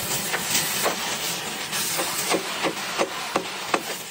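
Workshop noise: a steady hiss with a run of short, sharp taps at irregular spacing, often about three a second.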